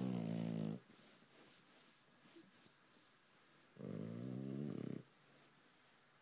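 French bulldog snoring in its sleep, pretty loud: two snores, each about a second long, one right at the start and one about four seconds in, with quiet breathing between.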